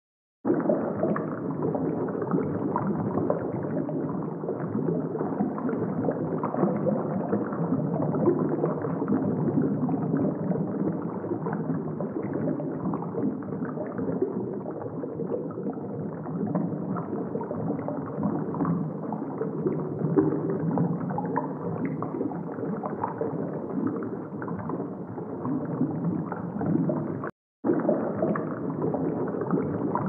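Muffled underwater ambience: steady churning water noise with a gurgling texture. It cuts out for an instant about 27 seconds in.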